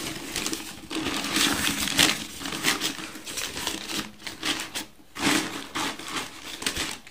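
Newspaper rustling and crinkling in irregular bursts as a folded paper liner is pushed and pressed into a dustbin.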